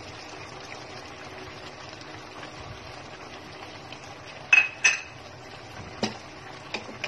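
Pot of chicken stew simmering with a steady low hiss. About four and a half seconds in come two sharp, ringing clinks of a dish or utensil against the enamel pot, then a couple of lighter knocks near the end.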